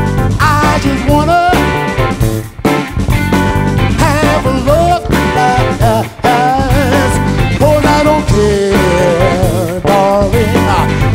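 Live funk band playing: electric bass and drums keep a steady groove, with a lead line above them that bends and wavers in pitch.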